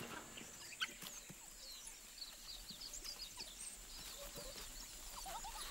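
Faint, scattered high-pitched chirps and twitters from animals, many short calls overlapping, with a few lower squeaks near the end.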